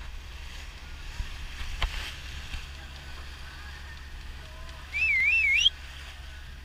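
Steady wind and water noise aboard a sailboat, with faint wavering squeaks and a sharp knock about two seconds in. About five seconds in, a loud whistle warbles up and down for under a second and rises at the end.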